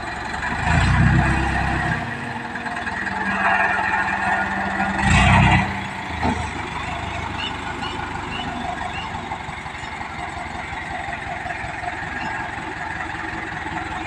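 Mobile crane's diesel engine running while it hoists a steel roof truss, surging louder twice: about a second in and again about five seconds in.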